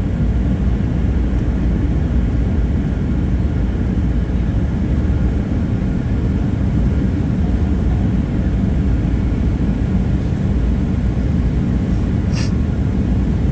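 Steady low cabin drone inside a Boeing 737-800 airliner on its descent to landing, from its engines and the air rushing past the fuselage.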